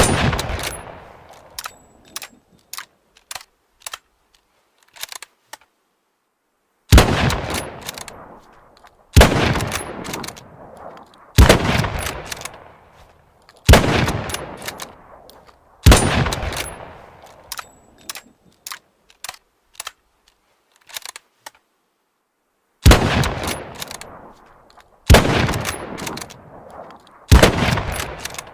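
Mosin-Nagant bolt-action rifle firing nine single shots, each with a long echoing tail. The shots come about two seconds apart in two runs with a pause between them, and short clicks sound between some shots.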